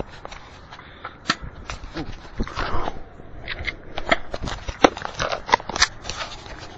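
An irregular flurry of sharp clicks and cracks with rustling, thickest from about four seconds in.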